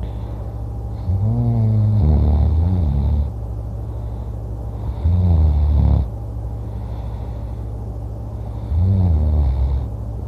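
A person snoring loudly in his sleep: three long, low snores about four seconds apart, over a steady low hum.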